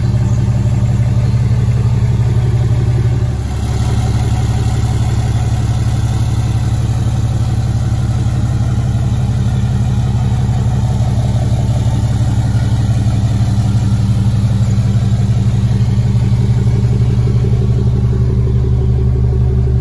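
2018 Ram 2500's 6.7-litre Cummins inline-six turbo diesel running steadily at idle, with a brief dip in level about three and a half seconds in.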